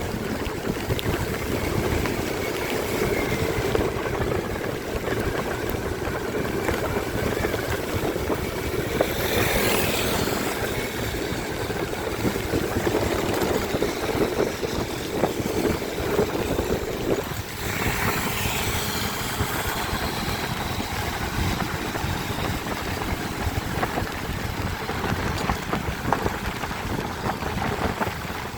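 Motorcycle riding on a rain-wet road: steady engine rumble and wind rush with tyre hiss on wet tarmac. Two louder swells of spray hiss come about a third of the way in and just past the middle.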